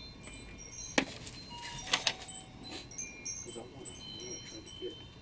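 A plastic Rodan figure and its paper and plastic packaging being handled: two sharp clicks about one and two seconds in, with light rustling, over a scatter of short, high ringing tones.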